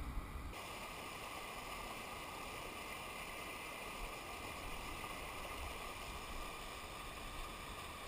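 Steady rushing of white water tumbling over rocks.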